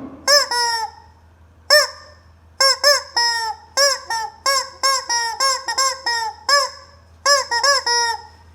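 Squeeze rubber chicken toy squawking over and over as it is pressed. Each squawk is a loud, rising-and-falling honk that trails off into a lower held note. They come singly and in quick runs of two to five.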